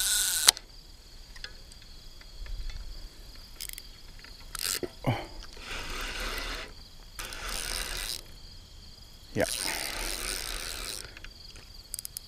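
Crickets trilling steadily, with several soft swells of rustling noise over them. It opens with half a second of loud rustling that cuts off abruptly.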